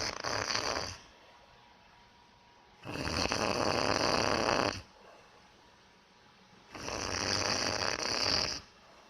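Snoring, recorded close to the sleeper: long snores on the breath, each about two seconds, coming about every four seconds, with the first one ending about a second in.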